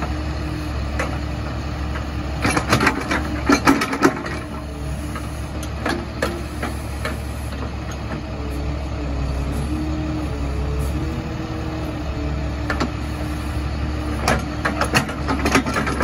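Engine running steadily to power a Bradco 509 truck-mounted backhoe as it digs. A cluster of sharp clanks and knocks comes from the bucket and arm working the dirt about two and a half seconds in, and again near the end.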